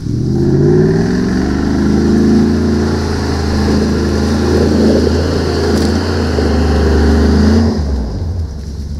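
Range Rover P38's 4.6 V8 working hard through its custom exhaust as it climbs a rutted mud track: the revs rise in the first second, hold under load with small surges, then drop off near the end.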